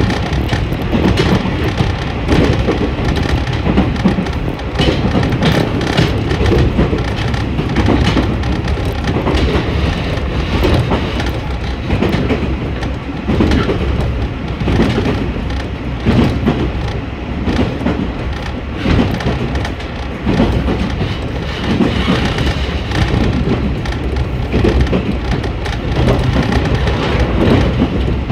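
Diesel railcar heard from inside the passenger cabin while running at speed: a steady low rumble of engine and wheels on rail, broken by frequent short knocks and clicks from the track.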